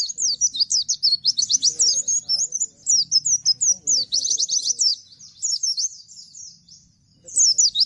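Pleci (Bustomi white-eye) singing its fast 'nembak' song: a rapid-fire run of high, sharply falling notes, several a second. It breaks off briefly about seven seconds in, then starts again.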